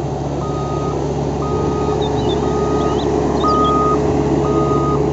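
Volvo single-drum road roller running steadily, its backup alarm beeping about once a second, each beep about half a second long.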